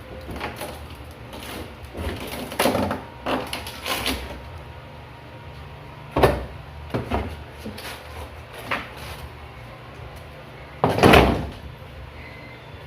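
Knocks, bangs and scrapes of a broken cabinet being taken apart by hand, in irregular bursts, with the loudest, longer bang near the end.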